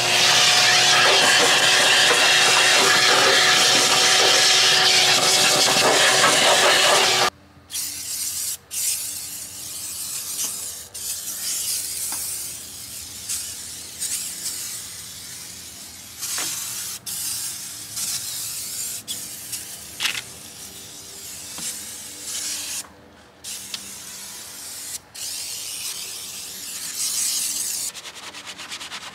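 A vacuum runs steadily with a constant tone, then cuts off suddenly about seven seconds in. After that come short hissing sprays of cleaner and a detailing brush scrubbing foamed degreaser on the engine of a 1966 Austin Mini Moke.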